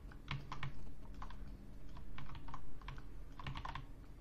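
Computer keyboard keys and mouse buttons clicking in short, irregular clusters over a faint low hum.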